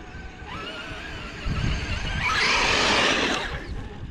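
Vehicle being driven off-road: the engine revs up with a rising whine, then there is a loud rushing noise for about two seconds in the middle.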